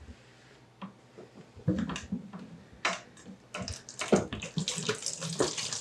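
Plastic gallon water jug handled against an empty plastic bottle, with scattered light knocks and clicks; about four seconds in, water starts pouring from the jug into the bottle in a steady splashing hiss.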